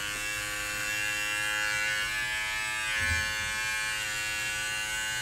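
Electric hair clipper buzzing steadily, held against the side of the head to trim a sideburn close to the scalp. A soft low bump is heard about three seconds in.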